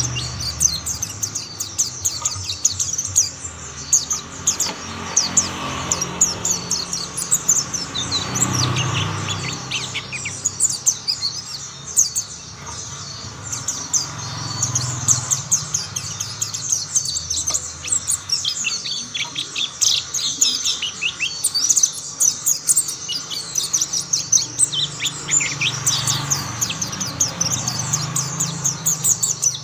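Mountain white-eye singing: a fast, unbroken twitter of high chirps running on without pause.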